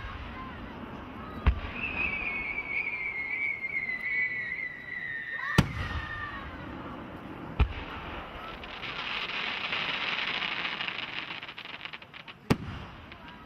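Fireworks: aerial shells bursting with sharp booms about a second and a half in, twice more in the middle, and near the end. A whistle sinks slowly in pitch for about four seconds and ends at one of the bursts, and a dense crackling follows for about three seconds in the second half.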